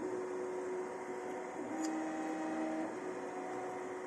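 Stepper motors of a Two Trees Sapphire Plus 3D printer whining steadily while it prints PETG, the tone stepping up or down in pitch as the moves change, about a second and a half in and again near three seconds.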